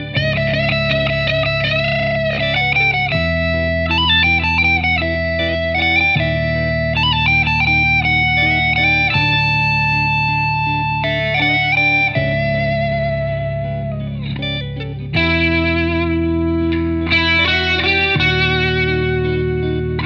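Drumless instrumental guitar music in a minor Dorian mode: a guitar lead melody with bent notes and vibrato over sustained backing chords that change about every three seconds.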